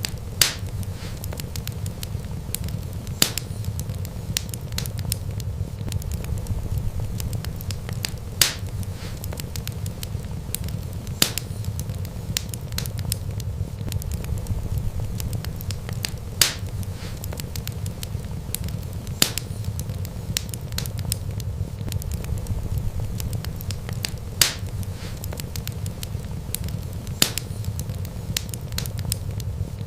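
Wood fire crackling, with a steady low rumble and a sharp pop every few seconds among many faint crackles.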